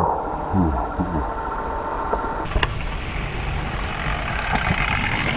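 Slowed-down outdoor sound: a steady low rumbling noise, with a few deep falling tones about half a second in and a single sharp click about two and a half seconds in.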